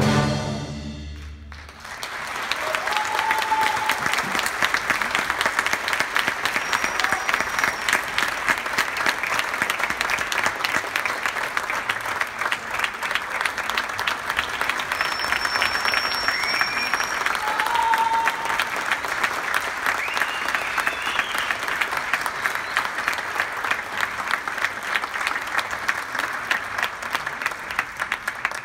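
A full orchestra's final chord fades away in the first second or two, then the concert-hall audience breaks into steady, sustained applause. A few short whistles and calls rise over the clapping.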